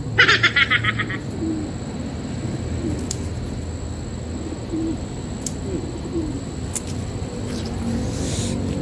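Birds calling over outdoor ambience: a quick rattling call in the first second, then a few short, faint low cooing notes and scattered clicks over a steady low rumble.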